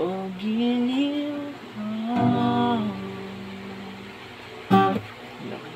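A man singing slow, long-held notes to his own acoustic guitar. A loud guitar strum about three-quarters through rings out, the loudest moment.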